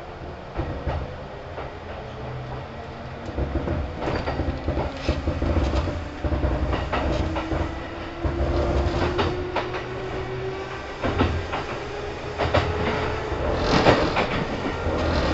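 Kintetsu 2800 series electric train picking up speed, heard from inside the car: the traction motors' whine climbs in pitch, then a lower whine climbs again. Wheels knock and clatter on the rail joints under a low rumble, with the loudest knocks near the end.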